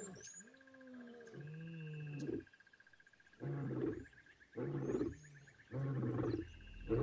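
Lion roaring: a long, low moaning call, then after a short pause three deep grunts about a second apart, the grunting tail of a roaring bout. A steady high trill and faint bird chirps run behind it.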